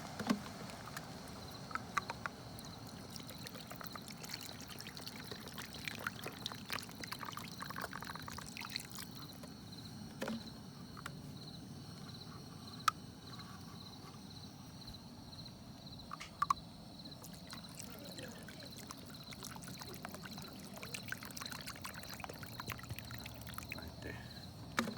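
Crickets chirping in a steady, pulsing trill, with scattered sharp clicks and knocks from handling cooking gear.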